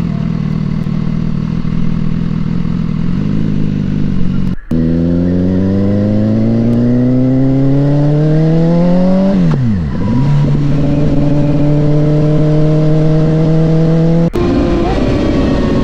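Motorcycle engine heard from a helmet-mounted action camera while riding, with road and wind noise: steady running, then after an abrupt cut the pitch climbs smoothly for about five seconds as the bike accelerates, dips sharply and recovers about ten seconds in, and settles to a steady cruise. A second abrupt cut comes near the end.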